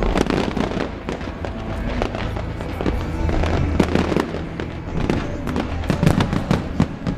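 Large fireworks display: many shell bursts and crackles in quick, overlapping succession, with music playing underneath.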